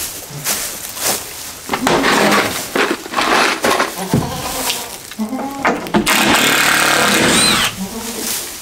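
Power drill backing out the screws that hold a wooden doghouse roof, running in several spells, the longest about a second and a half near the end.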